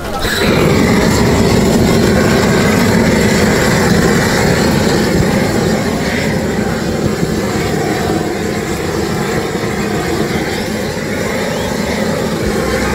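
Large handheld gas torch searing tuna on a grill, giving a loud, steady rushing roar that cuts in abruptly about half a second in.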